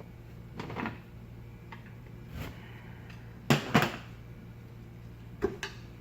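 Screwdrivers clinking and knocking against a fan motor's housing and bearing while prying at a bearing stuck on the motor shaft. There are a few short, sharp knocks, the loudest a pair about three and a half seconds in, over a steady low hum.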